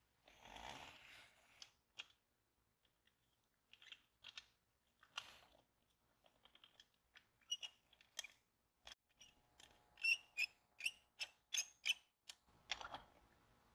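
Gloved hands handling an old metal Allis-Chalmers toy tractor: a soft rubbing and scrape at first, then scattered light clicks and knocks. About ten seconds in comes a quick run of about eight short, high squeaks, about four a second.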